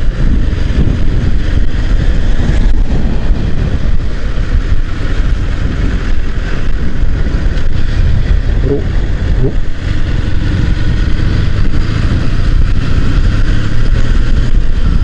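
Motorcycle riding at a steady pace: the engine runs under a loud, steady rumble of road and wind noise on the rider's microphone.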